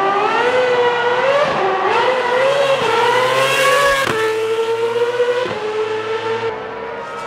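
Formula One car engine at high revs, accelerating hard. The pitch climbs and then drops sharply at each of several quick upshifts, about one every second and a half.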